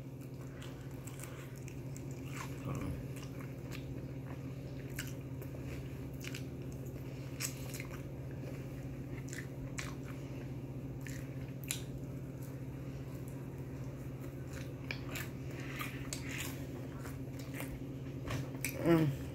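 Close-up eating sounds of a person biting and chewing a sauced fried chicken wing: short wet smacks and crunches scattered throughout. A steady low hum runs underneath.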